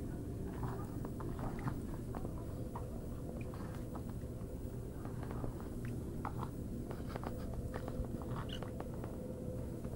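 A toddler chewing food and smacking her lips, heard as scattered small wet clicks and smacks over a steady low hum.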